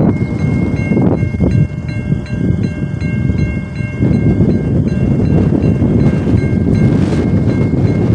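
Railroad crossing warning bell dinging in quick repeated strokes over heavy wind noise on the microphone. The crossing is malfunctioning: its signals are active with no train present.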